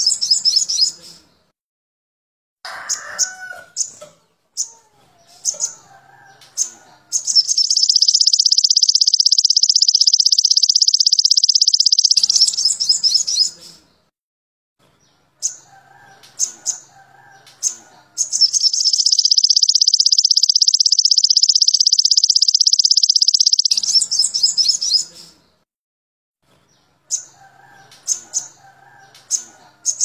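Olive-backed sunbird (sogon) song played as a tutor recording: long, high, rapid trills lasting several seconds, twice, with short sharp chirps and softer, lower twittering between them. Each phrase cuts off abruptly into silence.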